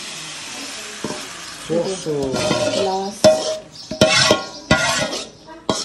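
A small pan sizzling on a gas burner as chocolate pancake batter is poured in, with a metal spoon scraping and knocking against the steel mixing bowl several times in the second half.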